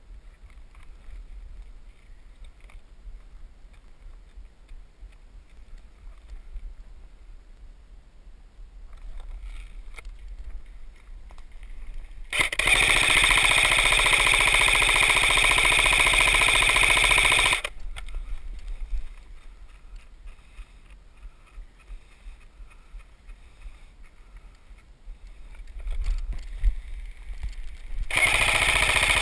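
Electric airsoft rifle firing on full auto: one long, steady burst of about five seconds near the middle, and a shorter burst near the end.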